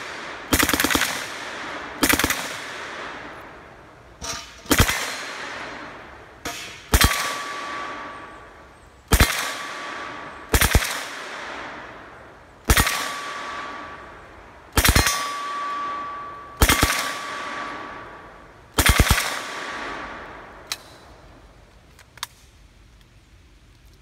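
Submachine gun fired in about a dozen short bursts, roughly one every two seconds, each trailing off in a long echo. A ringing note hangs after a few of the bursts, and the firing stops near the end.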